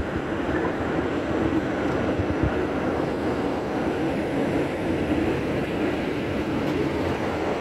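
NYC subway R68 car running at speed through a tunnel, heard from inside the car: a steady rumble and rail noise with a constant hum, and a couple of low knocks in the first few seconds.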